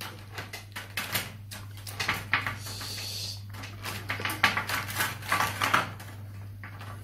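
Felt-tip markers clicking and rattling against each other as a hand rummages through a cup of them, over a steady low hum.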